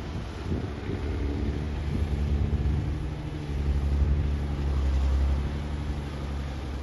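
Excavator engine running steadily with a low rumble, working a little harder for a couple of seconds in the middle.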